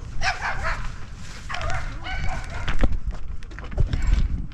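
A small dog barking, several short barks in the first couple of seconds, over a low rumble.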